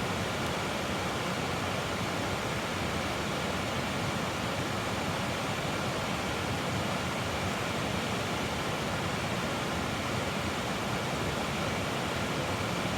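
Steady rushing of a creek's running water, an even, unbroken hiss.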